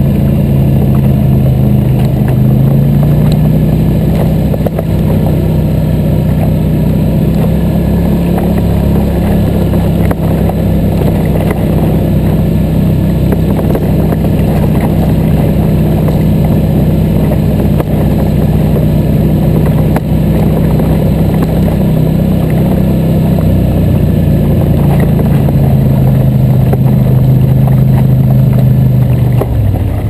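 ATV engine running steadily as the quad rides a rough dirt trail, heard close up from the machine carrying the camera, with a rattle of small knocks from the rough ground. The engine pitch rises a little about three seconds in and drops near the end as the quad slows to a stop.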